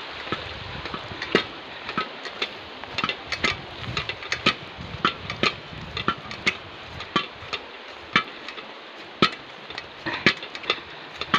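Metal cooking pots (a kaldero and a casserole) hanging on a walking hiker's back, clanking against each other with each step: irregular, ringing metallic clinks, a few a second.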